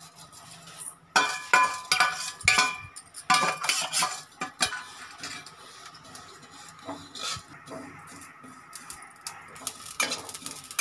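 A spoon scraping and clinking against a nonstick kadhai as cumin seeds are stirred while dry-roasting, in irregular bursts of scrapes with a short ring from the pan. The stirring is busiest in the first few seconds, eases off, then picks up again near the end.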